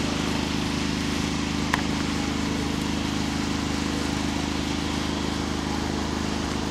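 A steady low mechanical hum with an even hiss over it, unchanging throughout, with one sharp click a little under two seconds in.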